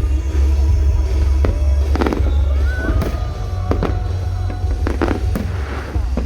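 Fireworks bursting in a string of sharp bangs, about seven over a few seconds, over steady music with a heavy bass.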